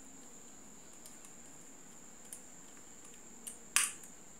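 Small screwdriver turning the locking screw in a dynamic microphone's metal handle: a few faint ticks, then one sharp metallic click near the end.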